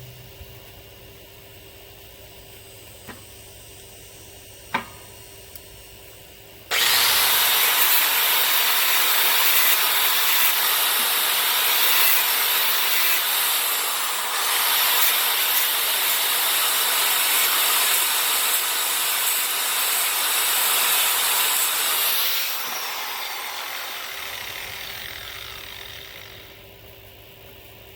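Power tool grinding the leaf-spring steel of the axe: a couple of light knocks, then a loud steady grinding noise starts suddenly about seven seconds in, runs for about fifteen seconds, and fades away over the last few seconds.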